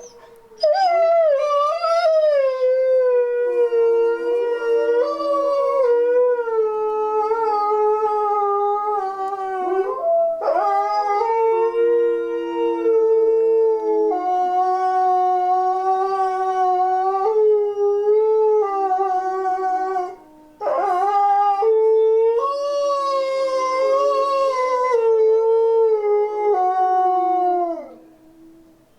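A pack of wolves howling together in chorus: several long held howls at different pitches overlap and slowly slide. There is a short break about two-thirds of the way through, and the chorus ends with falling howls near the end.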